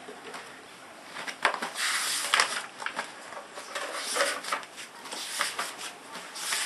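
Paper rustling and turning pages of a coloring book, with light taps and clicks from handling the book and gift items.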